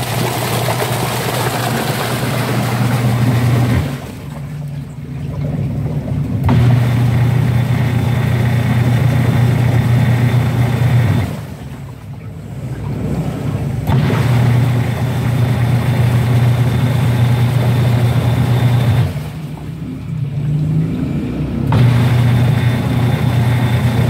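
Washing machine running a wash cycle on its newly replaced gearbox. The motor and belt-driven gearbox hum steadily for several seconds at a time and stop three times for two to three seconds, with water churning in the tub. This is the normal running sound of the machine once the damaged gearbox has been replaced.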